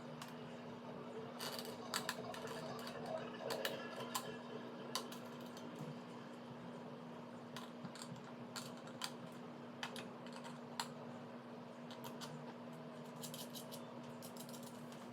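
Scattered light clicks and taps of a screwdriver, small screws and plastic parts as a crypto miner's plastic enclosure is screwed back together, over a steady low hum.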